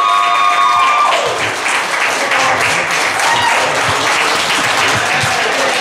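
Audience applauding and clapping in a small hall. A held musical note slides down and stops about a second in, leaving the applause on its own.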